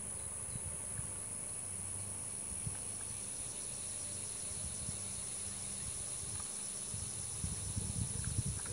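Steady, high-pitched insect chorus with a fine pulsing buzz, over low rumbling bumps that grow stronger near the end.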